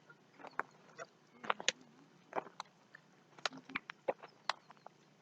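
Faint, scattered short calls of waterfowl, coming irregularly a few times a second.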